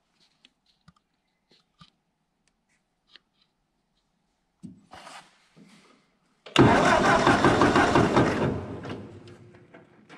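Ford 8N tractor's starter cranking the four-cylinder flathead engine for about two seconds, starting partway through after a few faint clicks, then tailing off without the engine catching. There is no spark from the coil, which the owner takes for a failed ignition coil.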